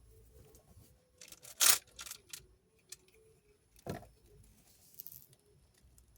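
Backing being peeled off the adhesive tape on a drawer slide: a short tearing sound about a second and a half in, a few smaller rustles after it, and a dull knock about four seconds in as the slide is handled.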